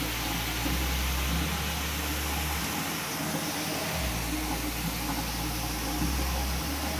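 Shower water running, a steady even hiss, with a low rumble underneath that drops out and returns a few times.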